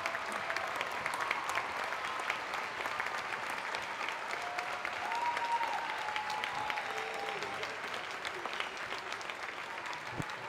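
Large crowd applauding steadily, with a few voices calling out over the clapping.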